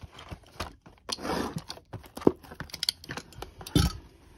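Hands handling a shrink-wrapped cardboard trading-card box and picking at its plastic wrap: crinkling and rustling with a string of sharp taps and clicks, the loudest a knock near the end.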